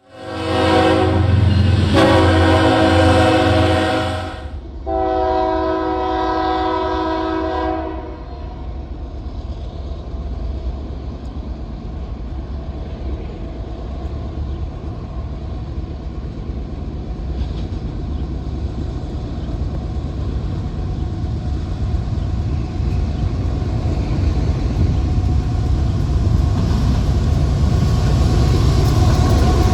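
Diesel locomotive air horn sounding three long blasts, then the steady rumble and wheel-on-rail noise of a train rolling past, slowly growing louder.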